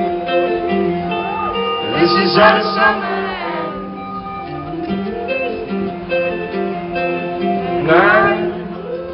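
Live band playing, with guitars, keyboard and drums under a singing voice. A louder sung voice rises over the band about two seconds in and again near the end.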